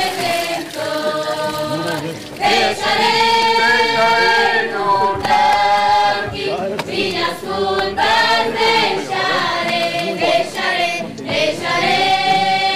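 A group of voices singing a hymn together in Portuguese and Portuguese creole, in long held phrases.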